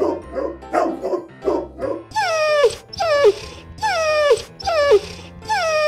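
Dubbed dog cries for a toy dog figure: a quick run of short yips, then four falling cries about a second apart, from a dog acting wound-up after eating chocolate.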